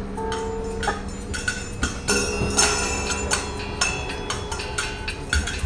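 Taiko ensemble performance getting under way: sharp clicks and taps in an irregular pattern over a steady held low tone, with heavy low drum strikes coming in near the end.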